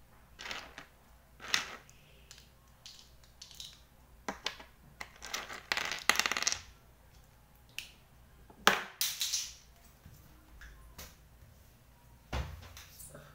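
Chunky plastic interlocking toy bricks clicking and clattering as they are handled and fitted together: scattered sharp clicks, a busier run of rattling about six seconds in, and a sharp knock near nine seconds.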